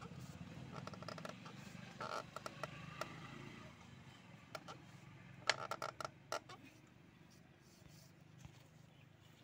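Strap-type oil filter wrench creaking and clicking in short bursts as it grips and turns the spin-on oil filter on a Mahindra 475 DI tractor engine.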